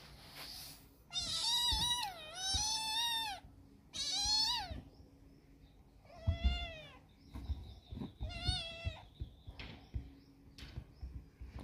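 A kitten meowing five times, high-pitched calls of about a second each, spaced a second or two apart.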